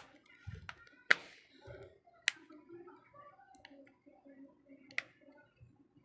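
Sharp small clicks and taps from small phone parts, screws and tools being handled at a repair bench: three louder clicks, about a second in, about two seconds in and about five seconds in, with faint scattered handling ticks between.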